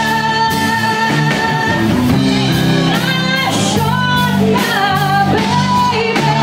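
Live band performance: a woman singing long, wavering held notes into a microphone over a backing band with electric guitar.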